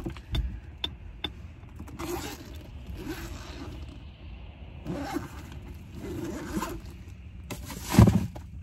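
A few sharp clicks as a car seatbelt is released and slides back, then several quick zipper pulls, the loudest just before the end.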